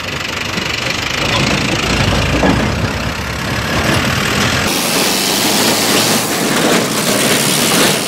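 Vehicle engine running close by under a loud, steady rushing noise; about halfway through the deep rumble drops away and the rushing turns brighter.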